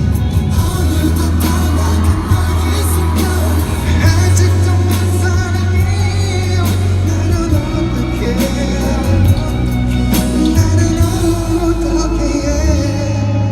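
Loud live K-pop music with singing over a heavy, steady bass line.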